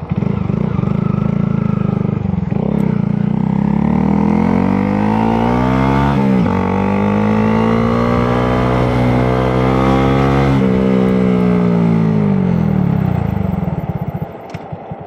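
2022 Honda Grom's 124 cc single-cylinder engine accelerating under load: the pitch climbs, drops sharply at an upshift about six seconds in, climbs again, then falls away as the bike slows near the end.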